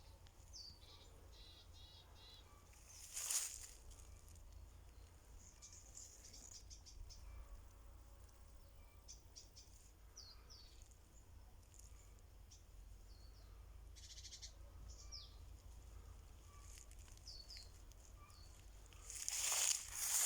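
Small birds calling in woodland: many short, high chirps and sweeping notes, with a quick trill early on. Two brief, louder noisy bursts stand out, one about three seconds in and one near the end.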